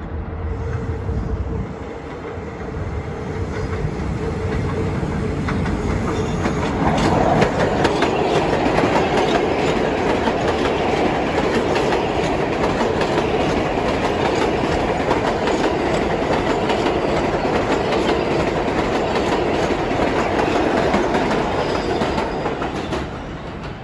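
R188 subway train on the 7 line running through the station on the express track without stopping, with a steady whine as it approaches, then the clatter of wheels over the rails, loudest from about seven seconds in. It drops off near the end as the last cars go by.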